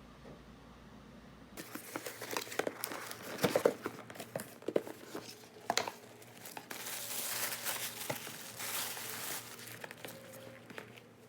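Crinkling and rustling of packaging being handled, starting suddenly about a second and a half in. It has irregular sharp crackles and clicks, loudest a few seconds in, then a steadier run of rustling that fades near the end.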